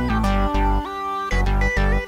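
Background music: a melody of plucked, guitar-like notes over a heavy bass beat.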